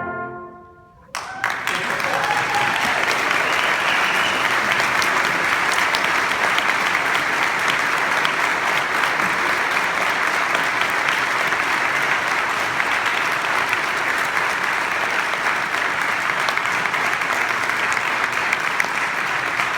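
A brass ensemble's final chord cuts off and fades away. About a second in, the audience breaks into applause, which carries on steadily.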